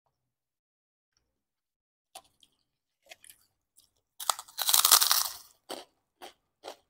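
A large puffed Indonesian cracker (kerupuk) bitten off with a loud, crisp crunch about four seconds in, then chewed in three short crunches. A few soft mouth clicks come before the bite.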